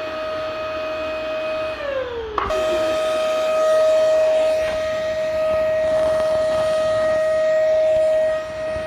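Vacuum cleaner motor running with a loud, steady high whine over a rushing air noise. About two seconds in, the whine drops in pitch, then the steady whine comes back abruptly.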